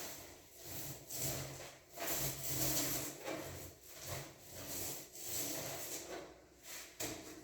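Roller spreading wall putty, in repeated rubbing strokes about once a second, each swelling and fading.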